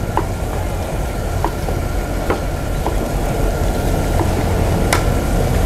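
Steady low rumble of a gas burner under a wok of simmering garlic sauce, with several short sharp clicks of metal tongs against the wok as fried chicken drumsticks go in.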